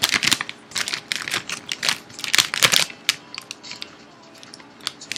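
Burrito packaging being handled, crinkling and crackling in quick irregular clicks, busiest in the first three seconds and thinning out after.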